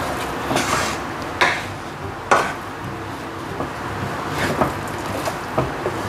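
Wooden spatula scraping and knocking against a nonstick frying pan as a thick, sticky lump of half-cooked rice-flour dough is pressed and gathered together. The strokes are irregular, the loudest about two and a half seconds in.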